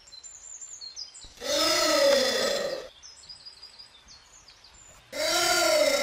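Giant anteater calling: two loud, drawn-out calls of about a second and a half each, the pitch rising and then falling. Faint bird chirps are heard between them.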